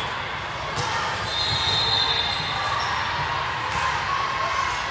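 Gym sounds during a volleyball match: a steady murmur of players and spectators, broken by two sharp hits, one about a second in and one later. A thin high squeak lasts about a second in between.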